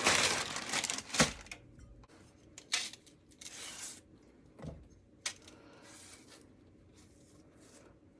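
Kitchen handling noises: a rustle over the first second, a sharp knock just after it, then a few scattered light clicks and short rustles.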